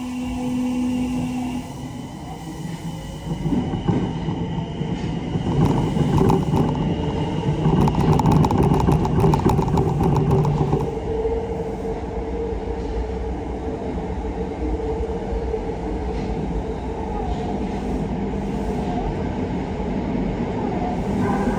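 Kita-Osaka Kyuko 9000 series electric train running through a tunnel, heard from inside the front car. The rumble of wheels on rail grows louder over the first few seconds, with a quick run of clicks from the wheels about a third of the way in. It then settles into steady running noise under a held motor tone.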